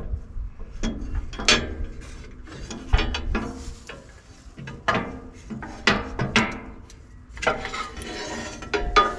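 Uneven metallic clinks and knocks of a wrench and steel parts being worked on a log splitter's lever linkage as a bolt is taken out, some ringing briefly, with a scraping sound near the end.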